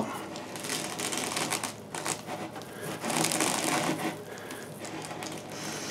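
Hook-and-loop sandpaper being unrolled and pressed onto the drum of a homemade drum sander: papery rustling and crackling, loudest about three seconds in.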